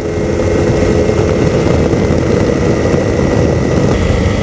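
Two-stroke engine and propeller of an ultralight airplane running steadily at cruise power in flight, a constant drone with a held whine on top.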